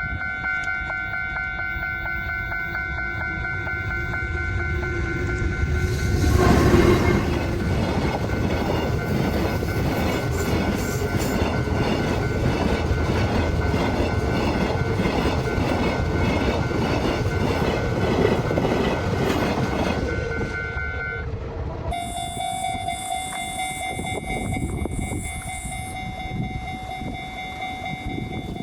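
Japanese level-crossing warning bell ringing steadily while a freight train passes for about fifteen seconds, its wheels clacking over the rail joints, with a loud horn blast as it arrives. About two-thirds of the way through, the bell cuts abruptly to a different-pitched crossing bell.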